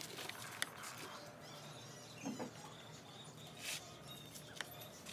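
Faint outdoor background with a few short, high chirps, the clearest about two seconds in, and a few light clicks.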